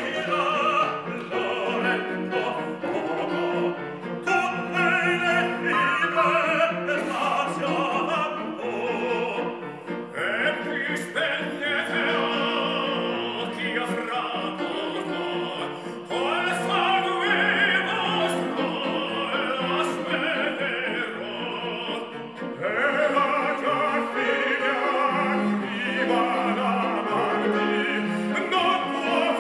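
Trio of tenors singing an operatic piece in full voice over instrumental accompaniment.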